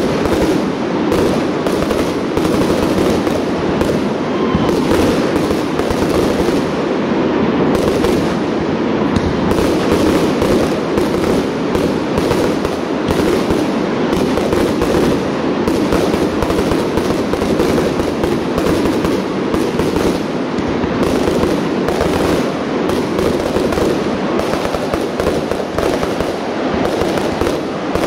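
Professional display fireworks firing a rapid, unbroken barrage of aerial bursts: dense overlapping bangs and crackle with no pause between shots.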